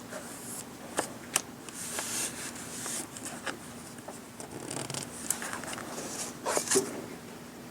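Craft materials handled by hand: papery, plastic rustling broken by a few sharp clicks and taps, the loudest about a second in and near the end.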